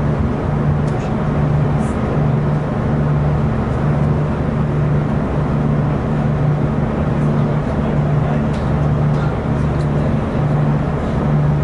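Onboard noise of a VLocity diesel railcar running along the track: a steady low drone from the engine and running gear with rail rumble, the low hum wavering about once a second.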